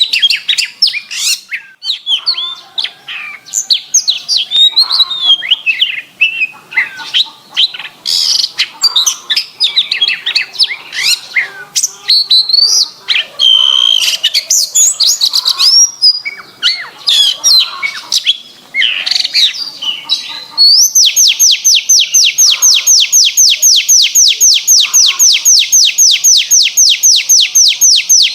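Domestic canary singing: a fast, varied run of chirps, whistles and warbles, then, about three-quarters of the way in, a long, even trill of rapid repeated notes at about seven a second.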